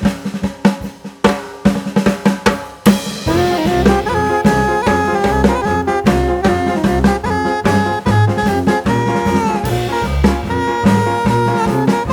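Background music: a drum kit plays alone for about three seconds, then a band comes in with a bass line and held melody notes over a steady beat.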